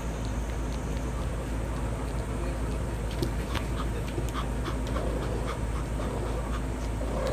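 A Pomeranian panting in short, quick breaths, about three or four a second, over a steady low rumble.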